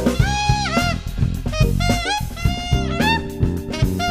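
A jazz band of saxophone, electric bass, keyboard and drum kit playing. The saxophone leads with a melodic line whose notes scoop up and fall off, over a walking bass and steady drum hits.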